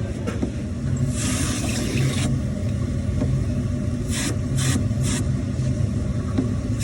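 Steady low mechanical hum with separate bursts of hissing: one lasting about a second, starting about a second in, then three short ones in quick succession about four to five seconds in.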